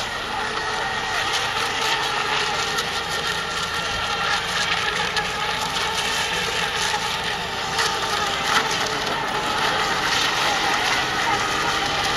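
Steady whine of several electric RC racing boats' motors running flat out across the water over a background hiss.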